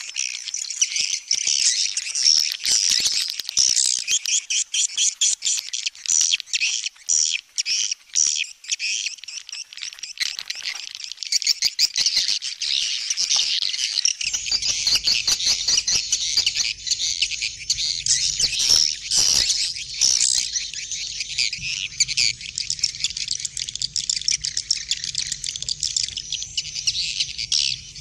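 Dense, continuous high twittering and chirping of many small birds. A low steady hum joins about halfway through.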